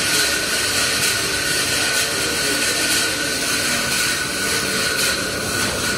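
Large sawmill band saw running steadily: a loud, even mechanical whir with a thin, high whine held on one pitch.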